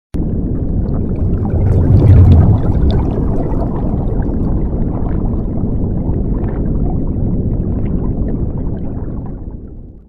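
Underwater ambience: a low, rumbling wash of moving water with scattered small clicks and crackles. It swells about two seconds in and fades out near the end.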